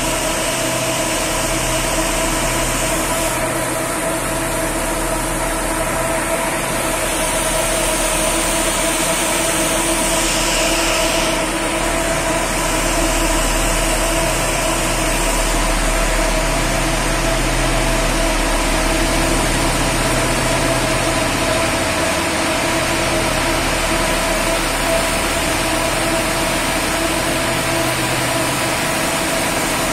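Tandem automatic bus wash (FIRATLINE Compact 5FRC) running: a loud, steady machine hum with several steady whining tones over a hiss of air and water, with the buses' engines idling underneath.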